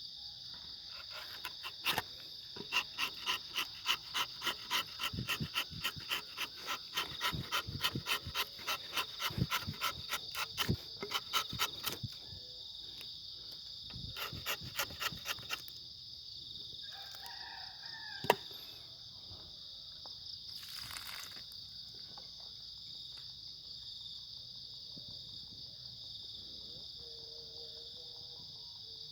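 Night insects, crickets, trilling steadily at a high pitch. Over them come a quick run of rhythmic clicking taps, about three a second, for the first dozen seconds, a shorter run soon after, and one sharp knock a little past halfway.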